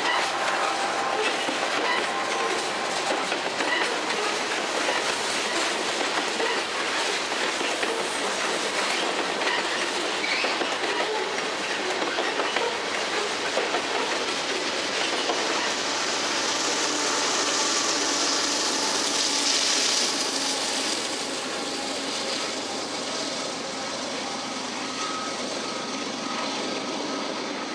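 Freight train of covered hopper cars rolling past close by, steel wheels clicking over the rail joints with a faint wheel squeal. Locomotives at the rear of the train pass about two thirds of the way through, and the sound then fades as the train moves away.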